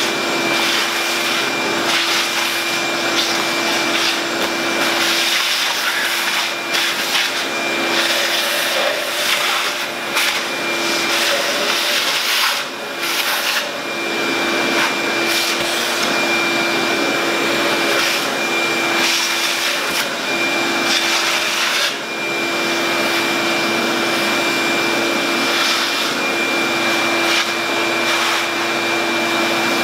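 Shop vacuum running steadily with a constant hum and a thin whistle, its hose and crevice nozzle sucking dirt off the top of an engine. The sound dips briefly about halfway through and again about two-thirds in, as the nozzle is moved.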